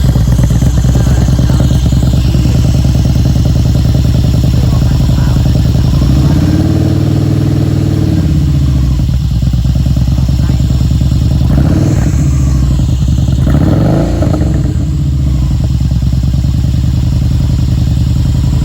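Yamaha Bolt's V-twin running through a freshly fitted Cobra slip-on muffler, idling steadily. It is revved once about a third of the way in, the pitch rising and falling, then given two quick blips later on.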